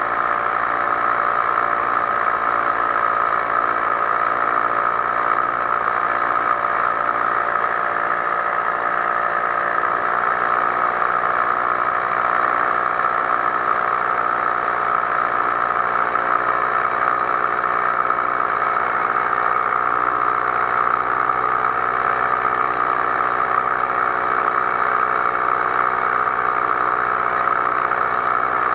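Powered paraglider's engine and propeller running steadily in flight, a constant drone at an even pitch.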